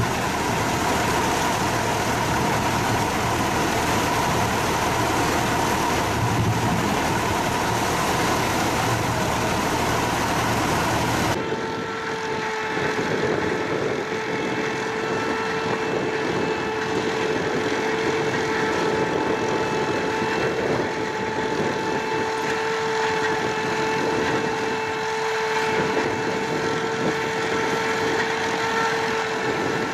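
Tractor engine running with a tractor-drawn pumpkin seed harvester working. About eleven seconds in, the sound cuts to another tractor and harvester, where a steady whine sits over the machine noise.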